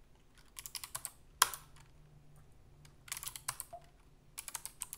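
Typing on a computer keyboard: a few short runs of keystrokes, with one sharper, louder key press about a second and a half in.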